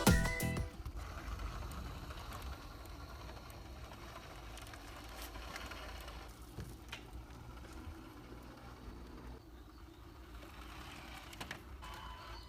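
Faint scattered clicks and light rattling of small plastic toy parts being handled, over a low steady hum.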